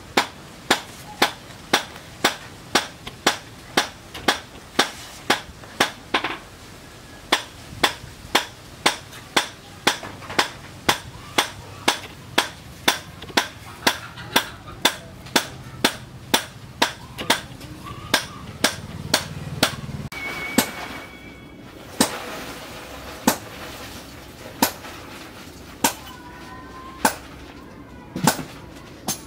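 Hammer blows on metal in a steady rhythm of about two strikes a second, each a sharp ringing clang. After about twenty seconds they turn slower and sparser, roughly one every second or so.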